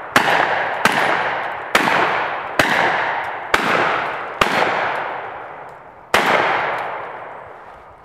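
Seven pistol shots, about one a second, the last after a pause of nearly two seconds; each shot echoes and dies away slowly.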